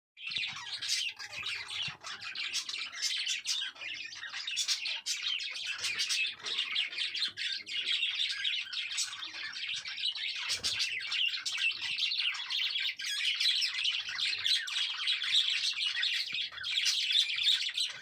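Several budgerigars chattering and warbling without pause: a dense stream of fast chirps and clicks.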